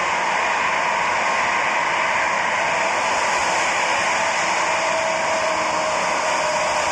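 Airbus A380's four jet engines running as it comes in to land: a steady rushing jet noise with a faint whine.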